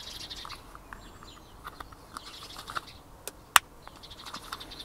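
Metal retaining clips being pushed onto the plastic body of a car's rain and light sensor, giving a few small clicks and one sharp snap about three and a half seconds in. Birds chirp in the background.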